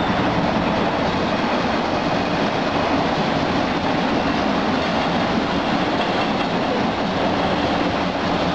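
MBTA Red Line subway cars running along the tracks past the station, a loud, steady noise of wheels on rails that doesn't let up.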